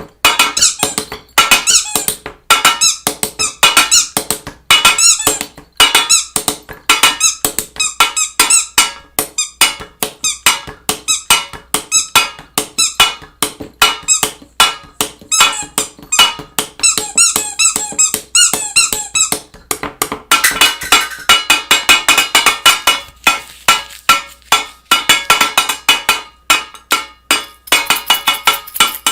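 Rapid series of short, high squeaks, growing denser and more continuous about twenty seconds in.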